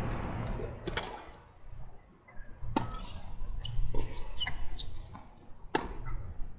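Tennis rally on a hard court: a series of sharp pops from rackets striking the ball and the ball bouncing, spaced irregularly about a second apart.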